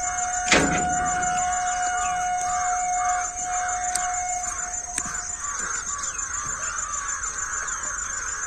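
Crows cawing over and over, about two calls a second, with a steady tone that fades out about five seconds in and a sharp click about half a second in.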